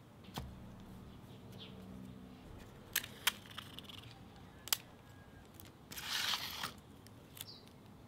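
Handling sounds on a tiled tabletop: a few sharp taps and clicks as a glass of water and painting materials are picked up and put down, then a brief rustle about six seconds in.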